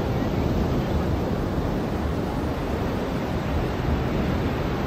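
Ocean surf washing onto a beach: a steady rush of breaking waves with a deep low rumble.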